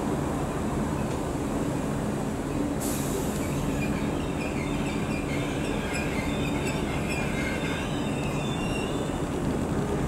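Merseyrail third-rail electric multiple unit running slowly into the platform round a curve, with a steady low hum. From about three seconds in, high wavering wheel squeal from the curve joins it, starting with a short hiss.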